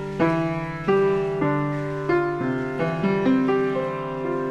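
Background piano music: a slow melody of struck notes, each ringing and fading as the next one comes in.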